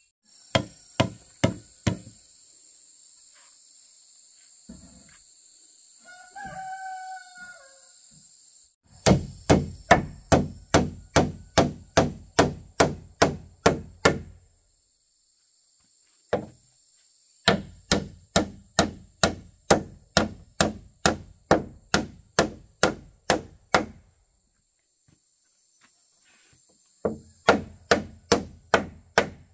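Runs of rapid, evenly spaced blows on wood, about three a second, broken by pauses of a few seconds. In the first pause, about six seconds in, a rooster crows once.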